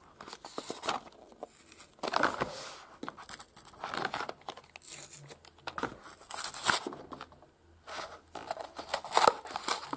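A carded Hot Wheels blister pack being cracked open by hand: the clear plastic blister crackles and crinkles as it is pushed and pressed, and the cardboard backing tears as it is peeled away. The sounds come in irregular bursts with short pauses between them.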